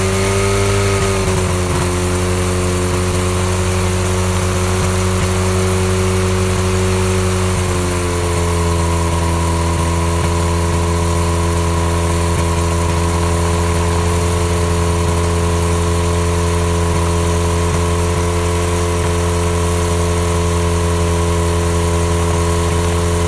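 Small aircraft engine of a homebuilt ultralight running on the ground during a run-up, propeller turning. It settles just after starting, runs steadily, and rises slightly in pitch about eight seconds in before holding there.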